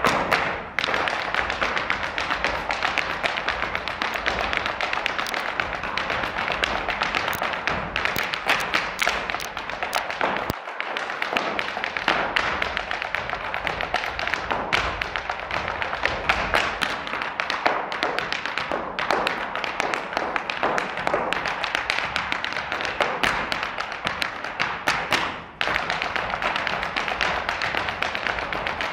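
Irish dance hard shoes beating fast, dense rhythms on a stage floor, several dancers at once, with sharp clicks and heavier stamps and no accompanying music.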